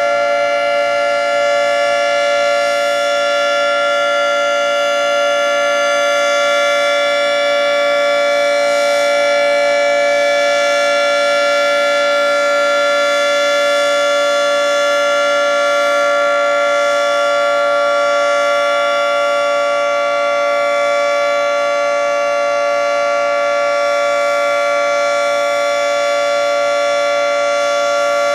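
Federal Signal 3T22 three-tone outdoor warning siren sounding its steady full-alert signal: a loud, constant chord of several tones held at one pitch, with no rise or fall in pitch.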